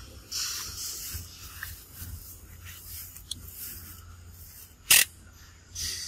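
Leaves and grass rustling and brushing as a macaque moves through the undergrowth, in short bursts, with one sharp snap about five seconds in.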